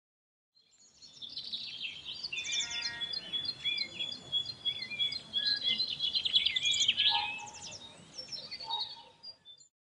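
Several songbirds chirping and singing over faint outdoor background, a busy mix of quick chirps, trills and short up-and-down whistles. It fades in about a second in and stops just before the end.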